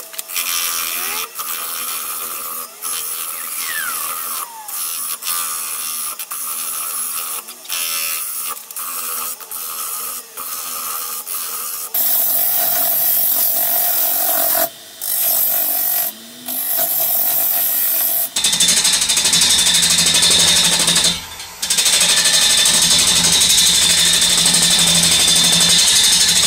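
Wood lathe turning a large plane-tree bowl blank while a hand-held turning tool cuts into its face: a hissing scrape that breaks off and resumes many times as the tool meets and leaves the wood. About halfway through the cutting grows louder and more continuous, with a few brief gaps.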